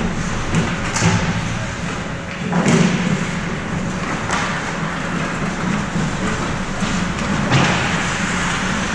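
Ice hockey play in a rink: a few sharp knocks and thuds over steady noise.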